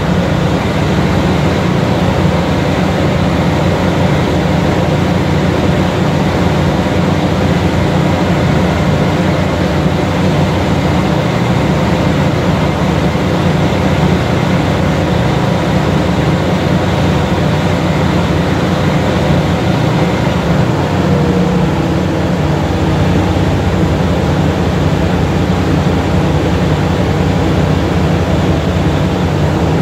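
Diesel-electric locomotive R138, a Taiwan Railways R100-class engine, running steadily with its air compressor pumping to top up the air reservoirs. The sound is a loud, even, low drone with no breaks.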